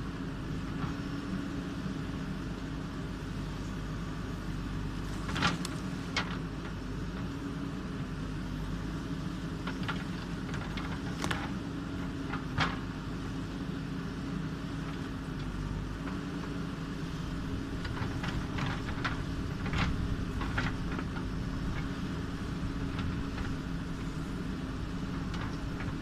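JCB backhoe loader's diesel engine running steadily as the backhoe arm digs and lifts soil. Sharp metallic clanks from the bucket and arm come a few at a time, with a cluster of them about two-thirds of the way through.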